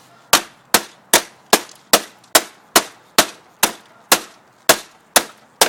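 Steady run of sharp hammer blows, about thirteen at roughly two and a half a second, knocking at a stubborn part of a printer's casing to drive it loose.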